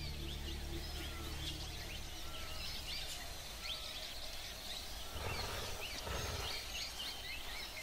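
Outdoor ambience of many small birds chirping and calling. A low steady hum sits underneath for the first second and a half or so, and two soft rustling noises come about five to six seconds in.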